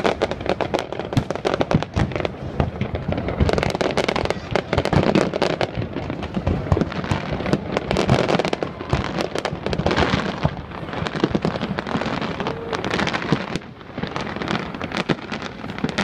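Large aerial fireworks display: a dense, continuous barrage of overlapping bangs and crackles, easing briefly near the end.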